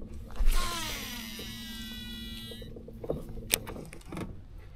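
Baitcasting reel spool whirring as line pays out on a cast, its whine falling in pitch as the spool slows, then stopping suddenly after about two seconds. A few sharp clicks follow.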